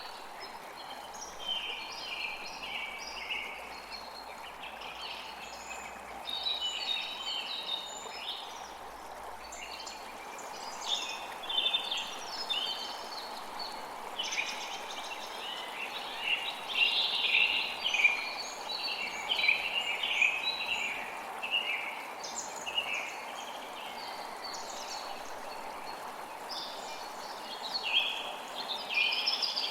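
Several forest birds singing and chattering in quick, overlapping chirps and trills over the steady rush of a flowing creek.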